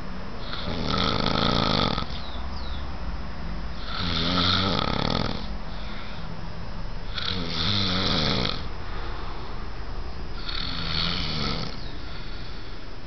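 A man snoring in his sleep: four long snores, one about every three seconds, each lasting about a second and a half.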